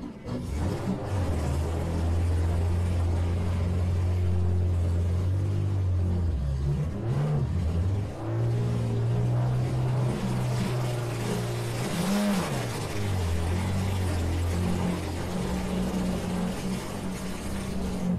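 Demolition-derby minivan engines running and revving, with short rises in pitch about seven and twelve seconds in.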